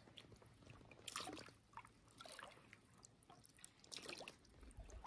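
Faint water sounds of a stand-up paddleboard paddle, swishing and dripping as the blade dips into calm lake water and lifts out, about three times.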